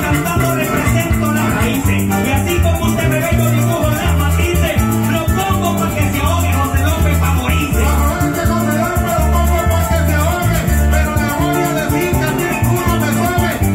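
Live Venezuelan llanero joropo: arpa llanera, cuatro, maracas and electric bass playing a quick, steady rhythm, with a man singing over them. This is a contrapunteo, a sung duel in which two singers trade improvised verses.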